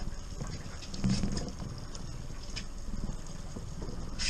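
A boat motor running steadily underneath, with short irregular clicks and rustles of a fishing reel and line as a hooked coho is played on a bent rod.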